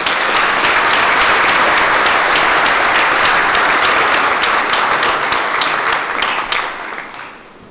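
Audience applauding, a dense wash of clapping that begins at once and dies away near the end.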